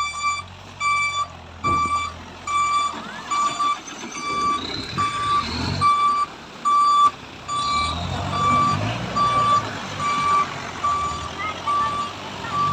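Vehicle reversing alarm beeping steadily, about two beeps a second, over the low rumble of a pickup's engine as the Chevrolet LUV 4x4 crosses a shallow creek.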